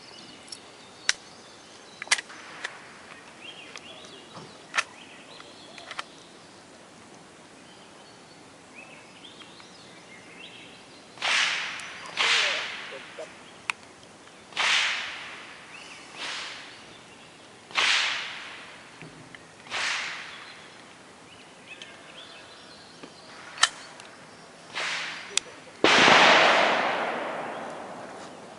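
Gunshots: a few scattered sharp cracks, then a string of louder shots about one to two seconds apart, each with a trailing echo, the loudest about two seconds before the end.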